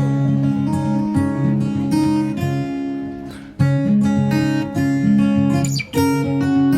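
Background music of a strummed acoustic guitar playing chords, with a brief pause just after three seconds.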